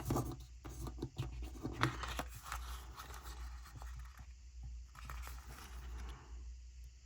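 Paper and sticker sheets being handled: light rustling and scraping with small clicks, which dies down near the end over a steady low hum.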